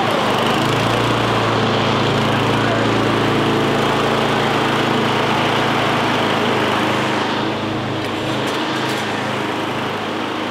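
Six-horsepower Briggs & Stratton push-mower engine running steadily after a pull start, newly brought back to life by a carburetor cleaning and a replaced throttle linkage. It gets a little quieter in the last few seconds.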